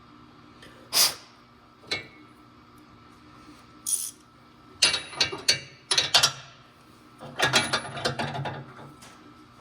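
Hand tools clicking on metal, with short bursts of rapid ratchet clicking from a socket wrench, as the cleaned sensor is turned back into the tractor. A few single sharp clicks come first, then three bursts of quick clicks in the second half.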